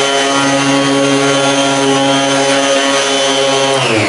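Electric orbital sander fitted with a foam polishing pad, its motor whining steadily at a high speed setting as it buffs a plastic headlight lens. Near the end it is switched off and the whine falls in pitch as the motor winds down.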